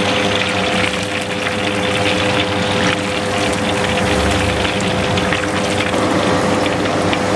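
Hot deep-frying oil in a wok sizzling and crackling steadily as a wire-mesh strainer skims crumbs from it, over a steady hum of one constant pitch.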